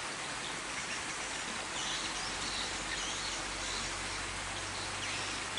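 A steady rushing hiss, with a few short high chirps between about two and three and a half seconds in.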